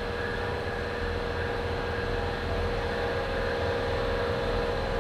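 A Chevrolet Silverado's engine idling steadily, with a constant hum and a few steady tones over it.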